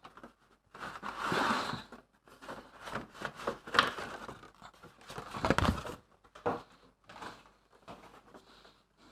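Cardboard packaging of a power-drill kit being handled and opened: irregular rustling and scraping with a few knocks, the heaviest knock about five and a half seconds in.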